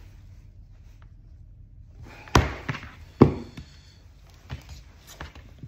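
Two sharp knocks a little under a second apart, then a few light taps: a metal handle being handled against a workbench.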